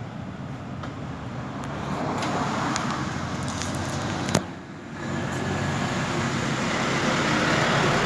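Steady road traffic noise that swells gradually, with one sharp knock about four seconds in.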